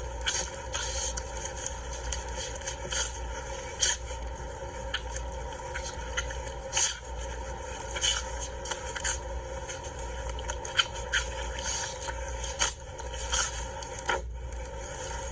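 A small animal sneezing and snorting in short, irregular bursts, mixed with scraping and scratching.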